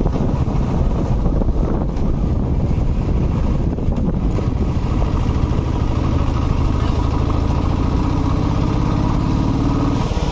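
Motorcycle engine running steadily under wind noise; about halfway through, a steadier low engine hum comes through more clearly.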